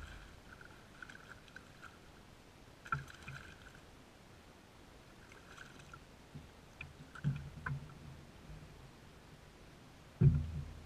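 A hooked bass splashing at the surface beside a bass boat while a fishing reel is wound in short bursts, with clicks and knocks of the landing. A heavy low thump near the end is the loudest sound.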